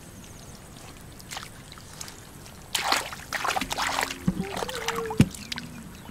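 Hands splashing and sloshing in shallow muddy water while groping for fish: quiet at first, then a busy run of splashes from about three seconds in, ending in one sharp slap of water.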